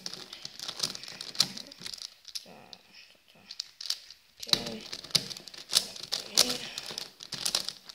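Plastic Megaminx puzzle being turned fast by hand during a timed solve: rapid, irregular clicks and clacks as its faces are twisted and snap into place, with a short lull a little after two seconds in.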